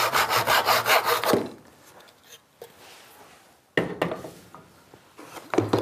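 Hand backsaw cutting through a small piece of hardwood with fast, even strokes, about five a second, until the cut is finished about a second and a half in. After a pause comes a sharp knock at about four seconds, then a few lighter knocks and clatters.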